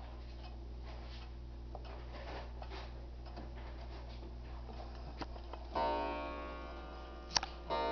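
Ansonia Regulator 'A' pendulum wall clock ticking while its minute hand is turned up to the hour, then the clock starting to strike. One ringing blow comes about six seconds in and a second just before the end, with a sharp click between them.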